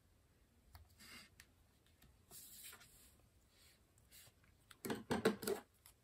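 Faint rustling of a thin strip of cardstock being handled, then about five seconds in a quick, louder cluster of clicks and snips from a pair of scissors.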